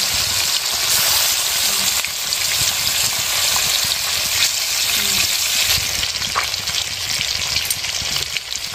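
Fish pieces frying in hot oil in a metal kadai: a steady, loud sizzle.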